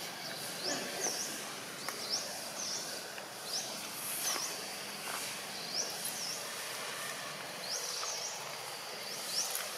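A bird calling short, high chirps over steady outdoor background noise, one about every second, each a quick rise and fall in pitch.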